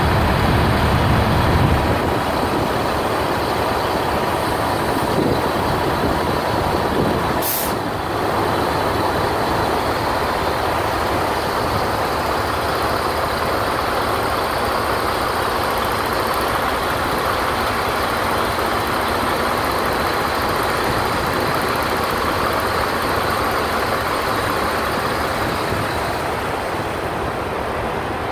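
Semi tractor-trailer's diesel engine running as the truck pulls away, with a heavier low rumble in the first couple of seconds and a brief hiss about seven seconds in.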